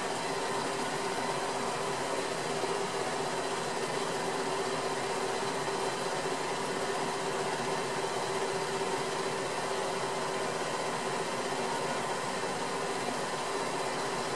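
A steady, unchanging mechanical whir and hiss with a couple of constant hums, no single events standing out.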